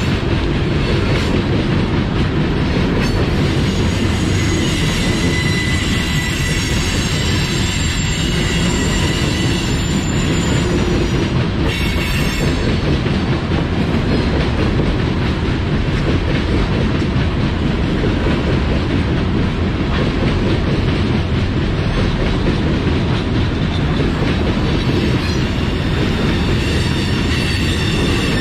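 Loaded coal hopper cars of a freight train rolling past: a steady rumble of steel wheels on rail, with thin high wheel squeals coming and going.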